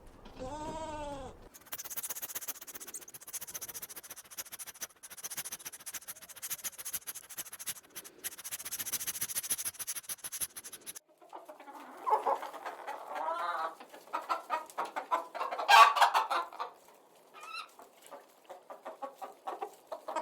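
Chickens clucking, a run of short repeated calls, loudest about three-quarters of the way through. It is preceded by a brief bleat at the very start.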